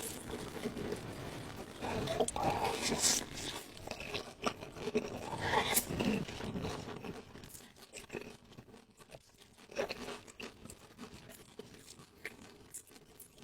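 A person eating close to the microphone: crunching, biting and chewing in irregular bursts. It is busier and louder in the first half, with sparser chewing clicks after.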